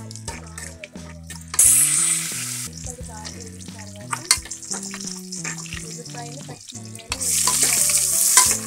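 Hot oil sizzling in a pressure cooker as a tempering is fried, with two loud bursts of hissing, about a second and a half in and again about seven seconds in, as curry leaves and then chopped onions and green chillies go into the oil. A ladle clicks and scrapes against the pot while stirring between them.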